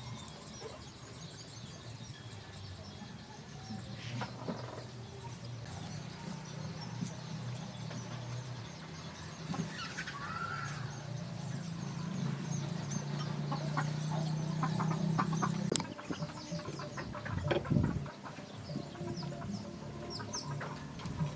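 Chickens clucking, with scattered sharp clicks and knocks.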